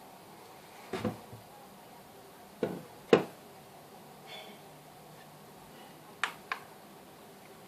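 A handful of short, sharp clicks and knocks, about five in all, coming singly or in pairs over a faint steady hum; the loudest comes about three seconds in.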